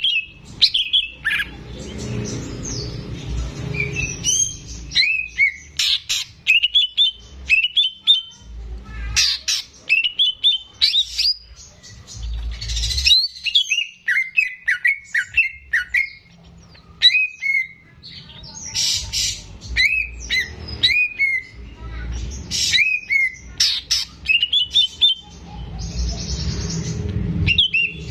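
Cucak ijo (greater green leafbird) singing: quick runs of sharp, sliding whistled notes and chirps, a few harsh rasping notes among them, broken by short pauses. A low rumble sits underneath at times.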